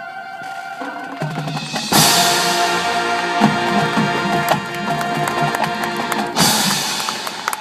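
High school marching band playing: a held note by the horns, then the full band comes in loudly with drums about two seconds in, and another loud accent near the end.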